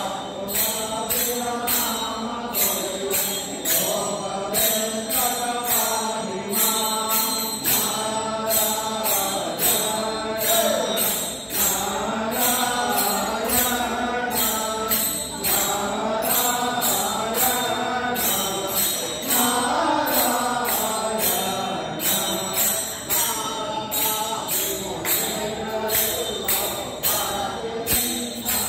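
A group singing a devotional Kannada sankirtane in unison, with small metal hand cymbals clashed on a steady quick beat.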